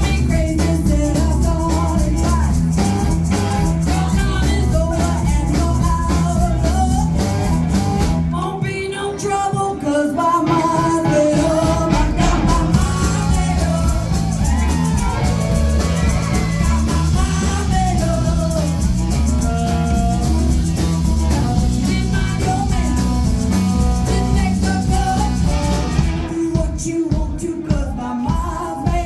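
Live rock and roll band playing an up-tempo song with singing and guitar; the bass and drums drop out briefly about eight seconds in and again near the end.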